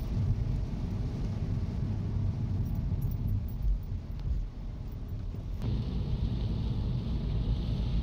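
Car driving on a rain-soaked road, heard from inside the cabin: a steady low rumble of road and engine noise, with a hiss that grows louder about five and a half seconds in.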